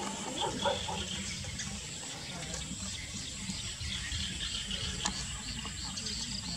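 Steady, hiss-like outdoor background noise, with a series of short high chirps repeating about twice a second from about halfway through.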